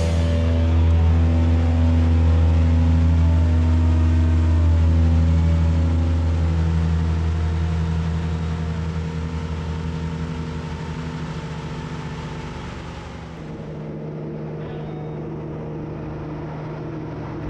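Small leisure hovercraft's engine and fan running steadily, then easing off and growing quieter over the second half.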